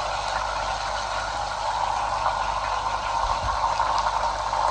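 African pompano steaks sizzling steadily as they shallow-fry in hot oil in a pan.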